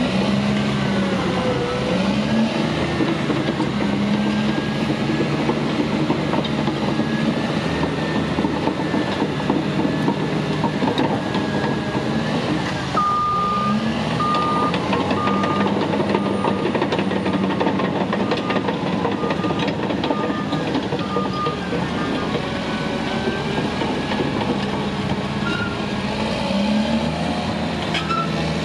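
Caterpillar D6T dozer's C9 diesel engine running, its pitch shifting up and down. About halfway through, the reversing alarm sounds a regular series of short beeps for around nine seconds.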